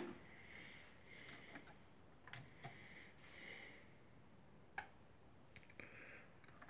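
Near silence with a few faint, sharp mechanical clicks from an Aiwa AD-WX707 cassette deck's transport, spread over several seconds, over faint hiss.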